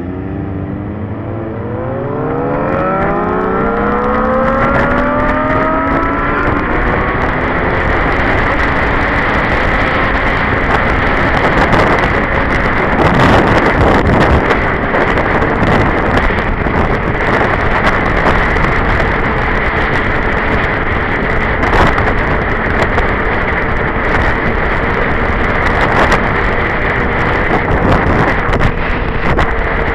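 Sportbike engine accelerating away from a stop, its pitch rising steadily over the first several seconds, then a dense rush of wind on the helmet-mounted microphone over the engine at road speed.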